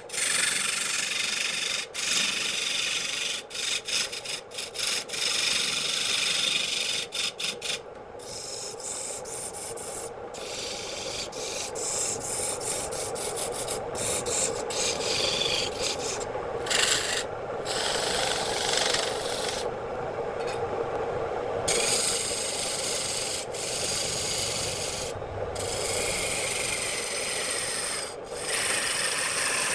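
A turning tool cutting wood spinning on a lathe: a steady scraping hiss, broken again and again by brief gaps as the tool comes off the wood.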